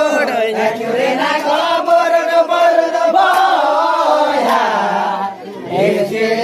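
Group of men singing a Santali Danta song together in a chanting style. There is a short break in the singing a little over five seconds in.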